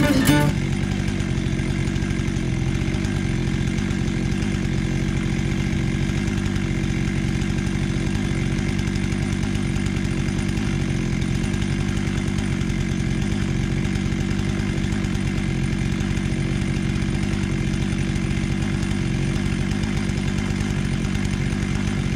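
Stihl MS 461 two-stroke chainsaw idling steadily, with no revving. Music cuts off about half a second in.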